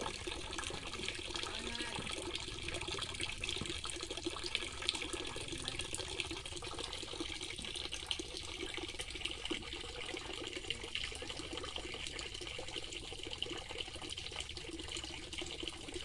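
Water pouring steadily from a pipe into a concrete pond, a continuous splashing stream.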